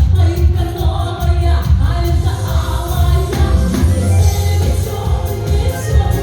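Russian pop song performed live: a woman singing over a backing track with a heavy, steady bass beat.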